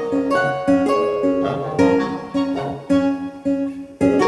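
Background music: plucked acoustic guitar playing notes in a steady, repeating pattern.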